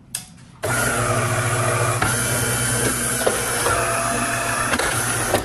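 De'Longhi Magnifica ESAM3300 espresso machine's newly replaced water pump switching on with a click and buzzing steadily for about five seconds as it pumps water through, then stopping. The repaired pump is running and moving water.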